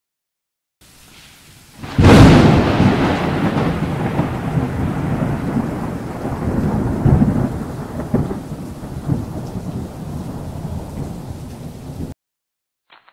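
Thunderstorm sound effect: faint rain, then a sudden thunderclap about two seconds in that rolls on into long rumbling over the rain and cuts off abruptly near the end.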